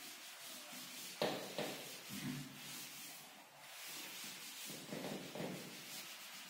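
Cloth wiping chalk off a chalkboard: a series of faint rubbing strokes.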